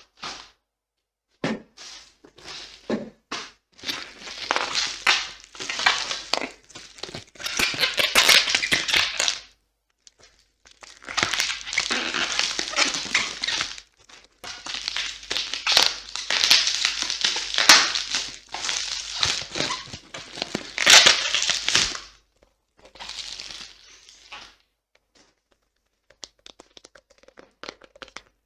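Clear plastic bubble wrap crinkling and rustling as it is handled and pulled off a boxed phone, in long loud spells broken by short pauses. Near the end it gives way to quieter, scattered clicks and handling of the box.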